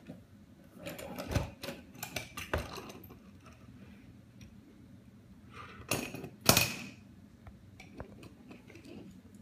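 Small toy cars clicking and clattering as they are pushed and set down on a tabletop beside a plastic toy, a run of taps in the first few seconds and two louder knocks about six seconds in.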